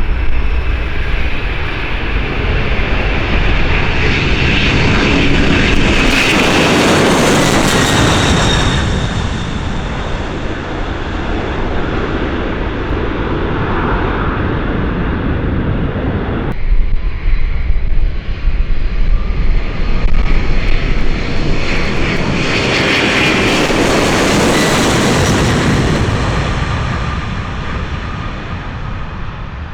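Heavy jet airliner engines at departure power passing close by, the noise swelling and fading twice. The sound changes abruptly about halfway through, before the second pass.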